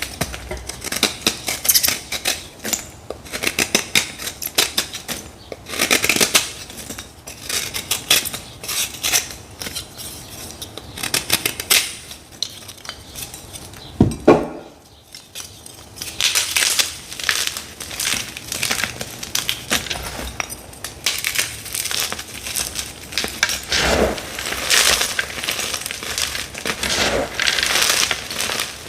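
Hard dyed gym chalk blocks crunching and crackling in dense runs of sharp crunches, close to the microphone, with one louder, deeper thud about halfway through.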